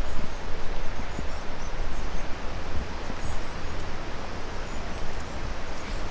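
Wind buffeting the microphone: a gusting low rumble over steady rushing noise.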